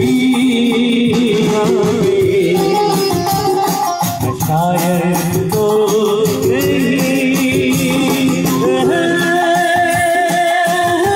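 Live band playing a Hindi film song: a male singer on a microphone over keyboard and percussion, heard through the stage PA.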